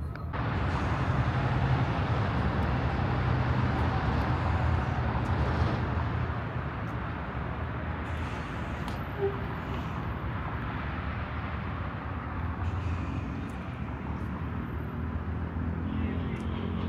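Steady low engine rumble under the running noise of a moving vehicle. It starts abruptly just after the beginning and eases a little after about six seconds.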